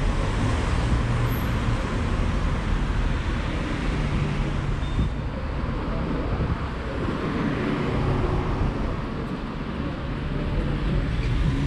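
Street traffic: vehicle engines running and the steady noise of cars on the road, with a low hum that shifts in pitch.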